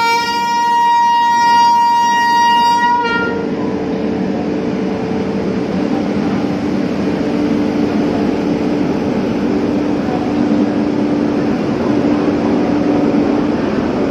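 WAP7 electric locomotive's horn sounding one long, high blast of about three seconds, then the steady running noise of the train moving off.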